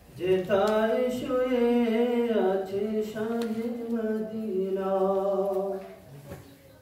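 A man singing an Islamic nasheed unaccompanied: one long, ornamented phrase with wavering pitch that trails off about six seconds in.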